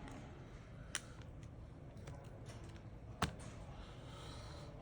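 Light clicks and taps of small repair tools handling an opened phone, with two sharper clicks about a second in and just after three seconds, over a low steady hum.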